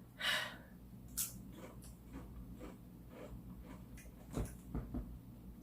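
A quick breath, then faint crunching and chewing of a potato chip in the mouth, with a few low thumps of chewing near the end.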